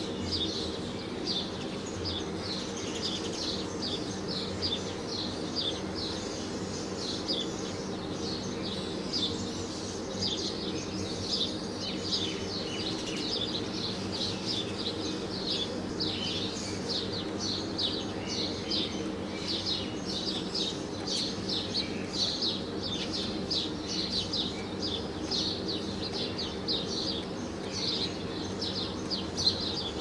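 Small birds chirping rapidly and without a break, many short high notes a second, over a steady low hum.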